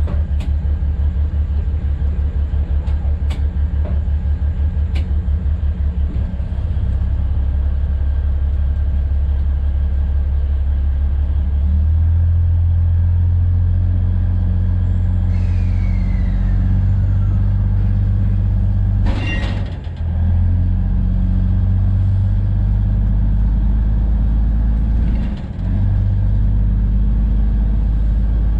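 Narrow-gauge diesel locomotive running with a steady low rumble. The rumble pulses quickly for the first few seconds and grows a little louder and steadier about twelve seconds in. A falling whine comes around the middle, and a short sharp noise follows a few seconds later.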